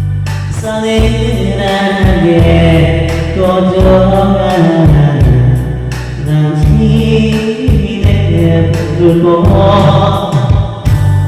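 A singer sustains a bending melody over loud accompaniment with heavy bass and a steady beat.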